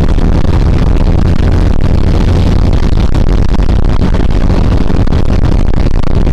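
Chevrolet D-20 pickup's diesel engine running steadily as the truck drives a muddy dirt road, heard from inside the cab as a loud, even drone.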